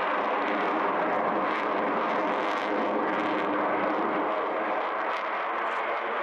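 Dassault Rafale fighter jet's twin Snecma M88 turbofan engines during a display pass, a steady, loud jet rush that eases slightly near the end.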